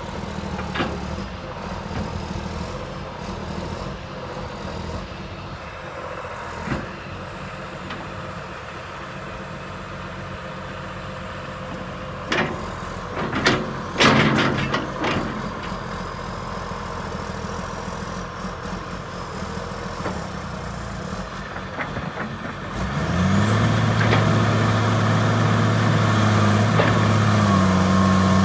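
John Deere 230 hydraulic excavator's diesel engine running steadily as the boom and bucket move, with a few sharp clanks around the middle. Near the end the engine speeds up and runs louder and steadier, with a faint high whine rising over it.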